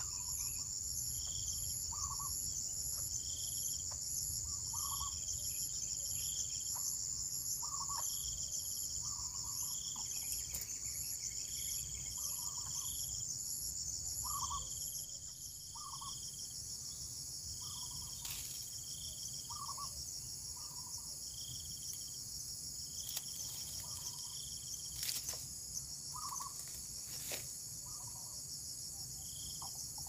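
Steady high-pitched insect chorus of crickets or cicadas, with a fast pulsing trill on top that stops about halfway through. Short calls repeat every second or two beneath it, and there are a few faint clicks.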